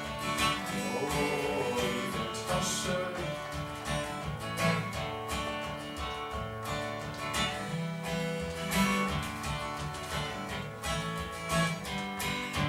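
Acoustic guitar strummed in a steady rhythm: an instrumental break between the verses of a song.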